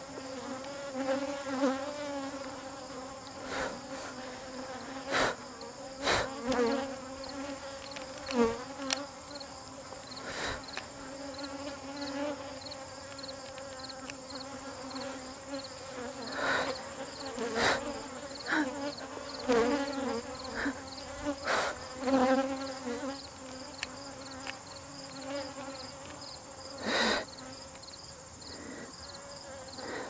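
Honeybees buzzing around an opened top-bar hive, a steady hum, with scattered short clicks and knocks throughout.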